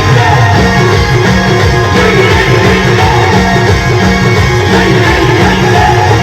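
Loud band music with a steady, driving beat.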